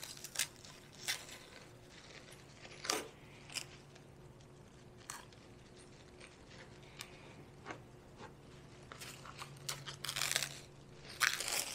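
Plastic wrap and its cardboard roll being handled: scattered faint crackles and taps, then a denser stretch of crinkling near the end as a sheet of plastic wrap is pulled off the roll and crumpled.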